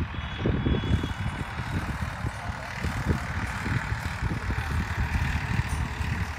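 Wind buffeting the microphone: an uneven, gusting low rumble with a steady hiss above it.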